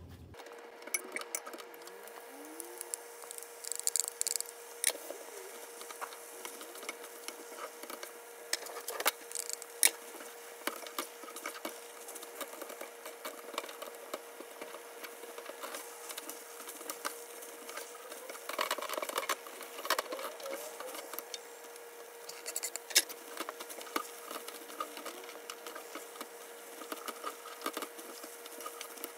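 Cooking utensils stirring and tossing bean sprouts in a frying pan: scattered clicks and taps against the pan with short scraping, rustling stretches, over a steady hum.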